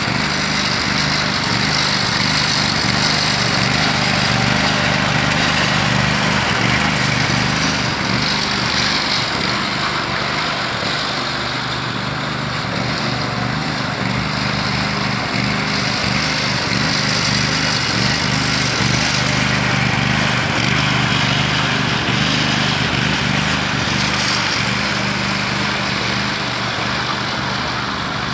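Ride-on power trowel's engine running steadily at a constant pitch while its rotating blades float and smooth a fresh concrete slab.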